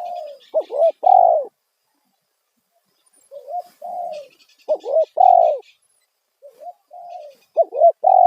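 Spotted dove (tekukur) cooing loudly: phrases of a few short coos, each ending in a longer note that falls away at the end, repeated about every three seconds. It is the single-'kuk' call used to lure wild doves.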